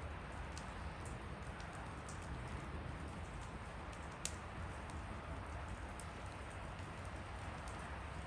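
Bonfire burning: a steady rush of flames with sparse faint crackles and one sharper pop about four seconds in.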